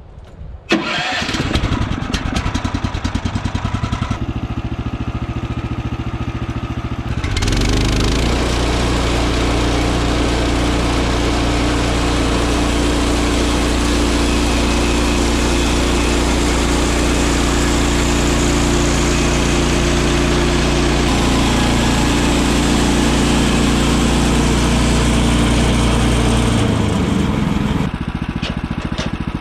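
A Woodland Mills HM130max sawmill's gas engine starts about a second in and idles. After several seconds it is throttled up and runs steadily at high speed for about twenty seconds, then drops back to idle near the end.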